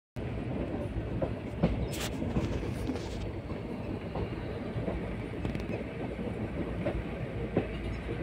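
Train running along the track: a steady low rumble with scattered clicks from the wheels and rails.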